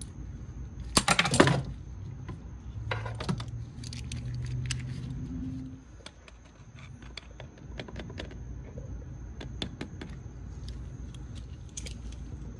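Metal hand tools clinking and clicking against hose clamps and engine parts, with a loud burst of clinks about a second in and scattered lighter clicks after. Locking pliers are at work on a spring hose clamp. A low hum runs for a few seconds around the middle.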